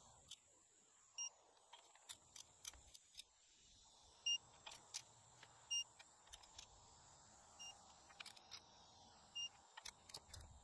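Faint, irregular metallic clicks and clinks of a socket on an extension spinning down the nuts on ARP cylinder-head studs of an LS engine. A few short, high beeps sound now and then.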